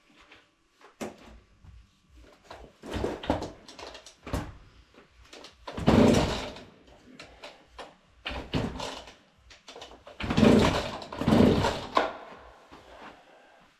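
Recoil starter cord of a Husqvarna 40 two-stroke chainsaw being yanked about six times, each pull a short rasping whirr. The engine does not start.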